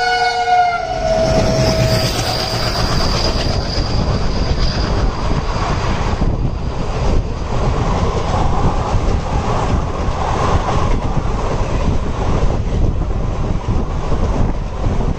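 Passenger train running on the rails with a steady rumble and wheel clatter. The locomotive horn trails off in the first second or two, and a thin high squeal carries on for a few seconds after.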